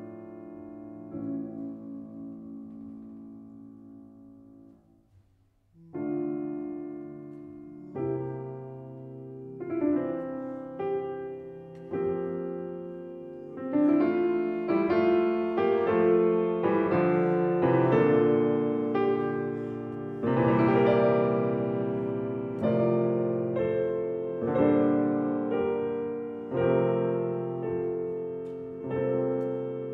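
Solo piano music, with notes struck and left to ring. It fades almost to nothing about five seconds in, then picks up again and grows louder and fuller from about halfway through.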